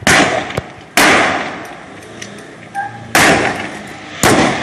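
Four loud bangs of simulated gunfire, each with a short echoing tail: two about a second apart, a pause of about two seconds, then two more about a second apart.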